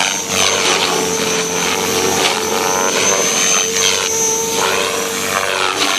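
Electric RC helicopter (Devil X360, 1800 kV motor) in flight, its motor and rotor blades giving a steady whine. The pitch rises and falls several times as it manoeuvres through light 3D moves.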